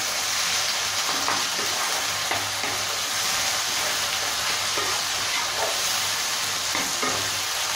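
Chopped capsicum, tomato, green beans and peas sizzling in hot oil in a non-stick kadai while being stirred with a wooden spatula: a steady frying hiss with small scattered scrapes and knocks of the spatula.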